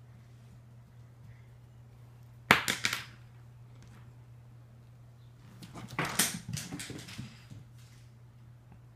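A pencil clattering on a hardwood floor. About two and a half seconds in there is a sharp clatter with a few quick bounces, and around six seconds a longer run of clicks and rattles, over a steady low hum.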